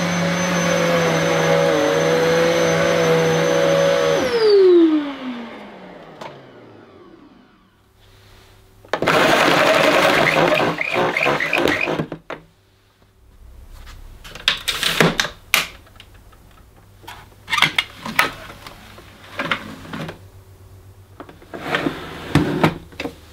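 Electrolux Intensity upright vacuum cleaner running, then switched off about four seconds in, its motor winding down with a falling whine over several seconds. A loud rustling rush follows for about three seconds, then a series of clicks and knocks as the handle is folded down.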